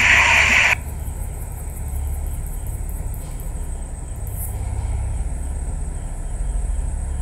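A loud hiss-like noise cuts off abruptly under a second in, leaving a steady low rumble or hum.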